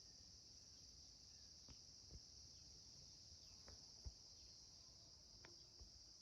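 Faint, steady high-pitched insect chorus in tropical forest, with a few soft ticks and taps.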